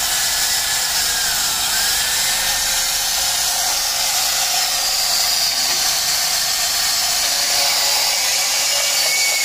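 Makita 18V cordless portable band saw running steadily as its blade cuts into a square steel tube, a continuous hiss and whine that grows a little brighter about halfway through.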